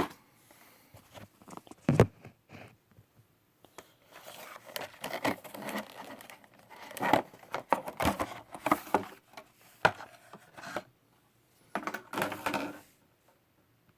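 Hands opening a mail-in toy package: a few sharp knocks at first, then spells of rustling, tearing and crinkling of the packaging that stop about a second before the end.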